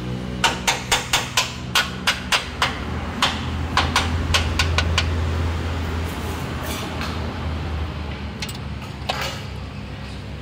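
Hammer tapping on the metal parts of a heavy truck's drum-brake assembly: a quick run of about ten sharp taps in the first three seconds, a few more around four seconds in, and a single one near the end, over a steady low hum.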